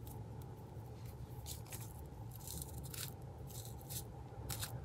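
Paper and lace being handled and pressed down by hand: a few short, soft rustles and crinkles over a faint steady low hum.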